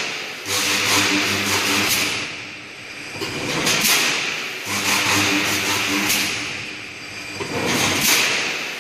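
Automatic double-cross-wire mesh welding machine running through its production cycle. It repeats about every four seconds: a stretch of steady electrical hum with hiss, then a short cluster of clanks as the mesh steps forward.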